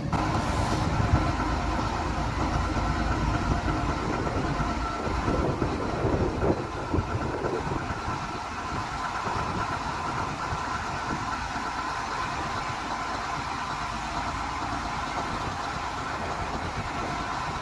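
Heavy diesel engines of construction vehicles running, which settle about halfway through into a steady, even idling drone with a faint steady whine.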